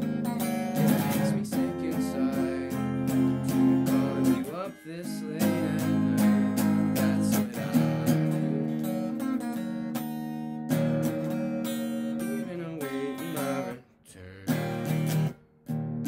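Electric guitar strumming chords, with two brief breaks near the end.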